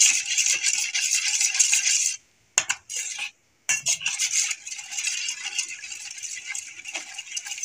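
Metal spoon briskly beating a runny egg and milk batter in a stainless steel bowl, rattling and scraping against the metal, with two short pauses about two and three and a half seconds in.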